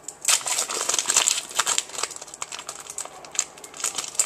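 Trading cards and their foil pack wrapping being handled: a quick run of crisp rustles, crinkles and card-on-card clicks, starting a moment in.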